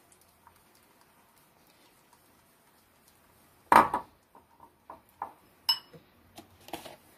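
Metal utensils knocking and clinking against a bowl of icing glaze: one loud knock a little over halfway, then a run of light clinks, one of them ringing briefly.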